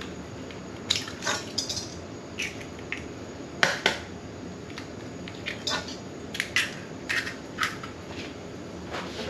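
Large hens' eggs cracked against the rim of a stainless steel mixing bowl: a series of sharp taps and the crunch of breaking shell, the loudest pair of taps about three and a half seconds in.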